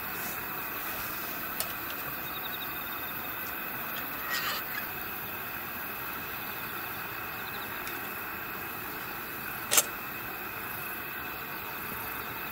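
Quiet, steady night-time outdoor ambience: an even hiss with a faint, continuous high-pitched tone. A light click comes about a second and a half in, and a sharper, louder click near the end.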